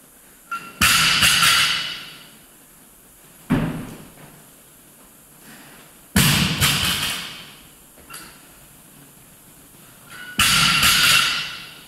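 Barbells loaded with bumper plates are dropped onto the gym floor four times during squat cleans. Each drop is a heavy thud followed by about a second of rattling plates dying away in the echoing room.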